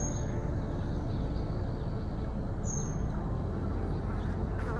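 Steady low rumbling outdoor background noise at an even level, with a short high chirp at the start and another a little past halfway, and a faint click near the end.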